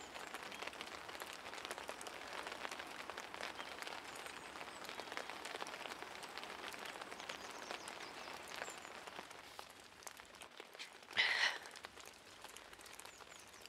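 Light rain pattering, a steady faint spatter of small drops that thins out after about ten seconds. A brief soft hiss comes about eleven seconds in.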